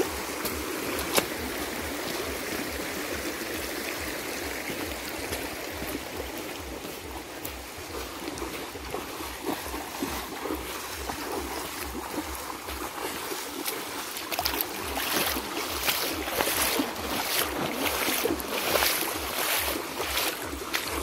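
Shallow, muddy river running over stones, with feet splashing through the water as people wade. The splashing gets louder and more frequent about two-thirds of the way through.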